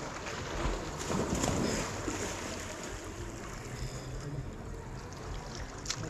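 Moving water: a steady wash of water noise, with a louder stretch of sloshing about a second in that lasts about a second.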